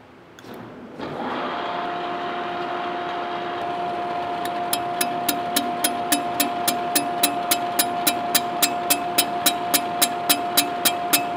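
Boring mill spindle starting about a second in and running with a steady whine. From about four and a half seconds a fly cutter takes a light facing pass on a cast iron table, its cutter striking the iron in an even ticking about three and a half times a second.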